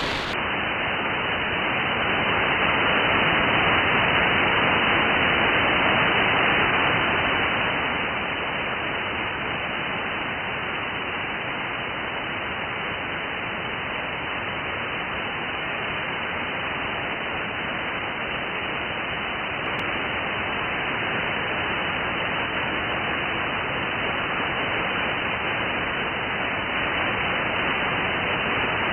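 Software-defined radio receiver putting out band noise: steady static hiss with no station on frequency, heard through a narrow receive filter. It grows louder for a few seconds near the start, then settles.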